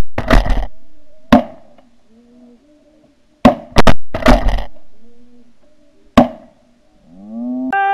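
A volley of shotgun blasts from several hunters, about eight shots in quick clusters, with geese calling faintly underneath. Near the end a rising, then held, whoop-like call begins.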